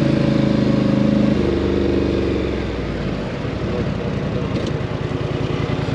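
ATV engine running at a steady speed, then dropping after a second or two to a lower, pulsing idle.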